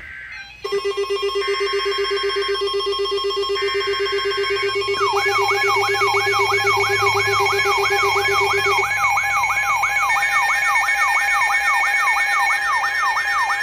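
Emergency Alert System alert tones: two short buzzing bursts of SAME header data about two seconds apart over a layer of steady electronic tones. From about five seconds in, a siren-like alarm tone sweeps rapidly up and down, roughly three times a second, alongside the steady tones.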